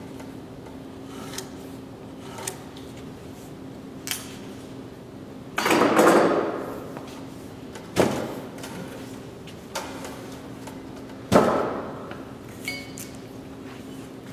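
Scattered knocks and clatters from hand layout tools, a square and a pencil, being set down and handled against a wooden timber. There is a longer, loud clatter about six seconds in and sharp knocks at about eight and eleven seconds, over a steady low hum.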